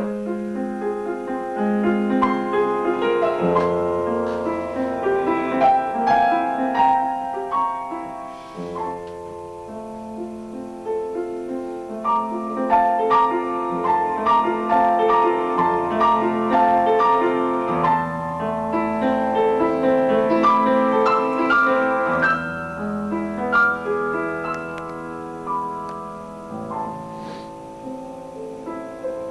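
Piano music: a steady flow of notes over held bass notes.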